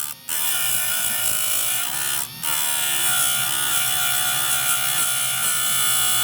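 Electric chainsaw chain sharpener's grinding wheel grinding a steel chain cutter tooth, loud and steady over the motor's hum. The grinding breaks off briefly near the start and again about two seconds in as the wheel is lifted and lowered onto the tooth again.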